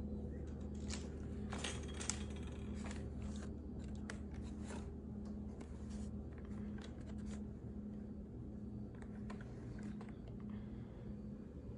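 Stiff plastic PP packing-band strips being handled and pushed into place by hand, giving a run of short crackly clicks and rustles that die away near the end. A steady low hum runs underneath.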